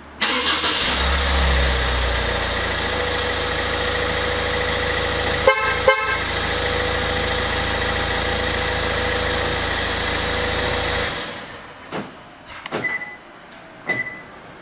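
Kia Carnival minivan engine remote-started and running steadily from an aftermarket remote-start alarm. About halfway through, the horn gives two short toots. The engine shuts off near the end, followed by a few clicks and short beeps.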